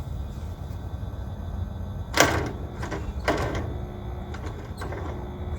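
McCormick W6 tractor's four-cylinder engine running with a steady low rumble, broken by two sharp bangs about two and three seconds in, the first the loudest, and a lighter one near the end.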